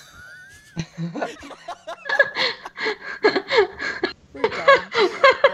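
A group of people laughing, quieter at first, then a run of quick repeated laughs from about two seconds in.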